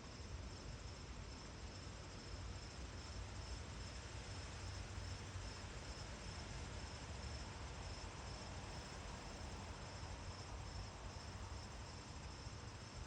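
Insects chirping in a steady, evenly pulsing high trill, with a low rumble of wind underneath; a faint outdoor ambience.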